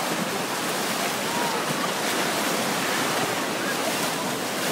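Shallow surf rushing and splashing steadily around a stranded pilot whale as waves break over it.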